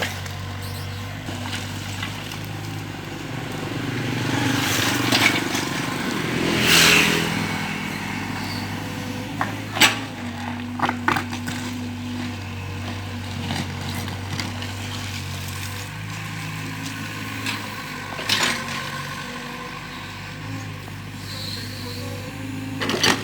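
Mini excavator's diesel engine running steadily, with scattered knocks and scrapes as it works the ground.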